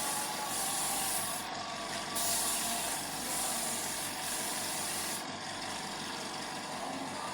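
Spray gun hissing in long bursts, the air cutting off briefly about a second and a half in and stopping about five seconds in, with a steady machine noise underneath.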